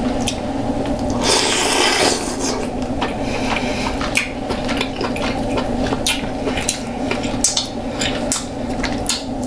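Close-miked eating sounds: shellfish being picked apart and chewed by hand, with scattered clicks, crackles and rubbing, a denser crackling patch about a second in. A steady low hum runs underneath.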